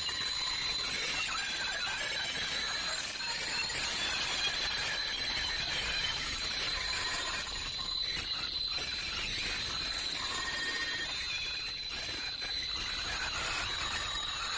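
Automatic PP woven bag making machine running, a steady high-pitched whine over a continuous mechanical hiss.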